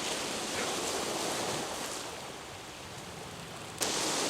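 Sea waves washing on the shore: a steady rushing that swells, ebbs, then surges suddenly louder near the end.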